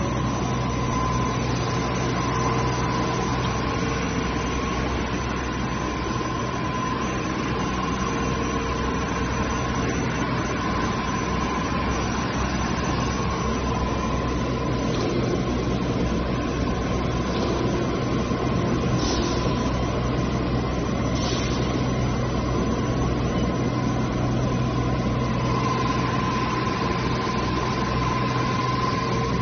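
Laboratory powder bin mixer running, its electric drive turning the conical mixing hopper: a steady low hum with a constant high whine over it.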